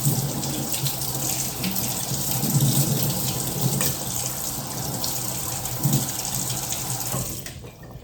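Kitchen sink tap running as metal tongs are rinsed under it, with a few light knocks; the water is shut off about seven seconds in.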